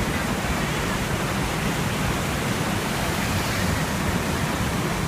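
Waterfall close by: a steady, dense rush of falling and churning water with a deep low rumble, unbroken throughout.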